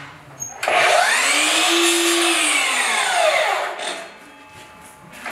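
DeWalt sliding compound mitre saw spinning up about half a second in, cutting through a bundle of taped-together fillet strips, then winding down with falling pitch after about three seconds. The saw starts up again right at the end.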